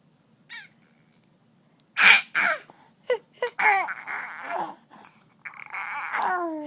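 A baby making a new vocal noise: a brief sound about half a second in, then from about two seconds in a string of short squeaks falling in pitch mixed with raspy, breathy hisses from the throat.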